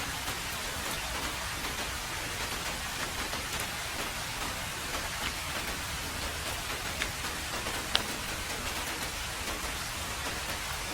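Heavy rain falling on a road: a steady, even hiss with scattered sharper drop ticks, the loudest about eight seconds in.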